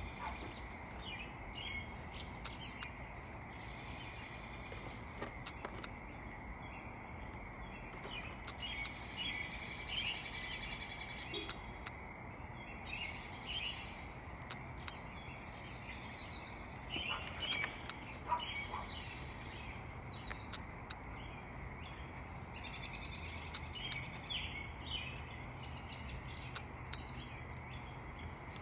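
Small birds chirping here and there over a faint steady background, with scattered sharp clicks.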